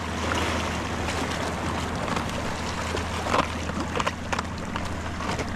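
Small waves washing and splashing against shore rocks over a steady low rumble, with a few light knocks around the middle.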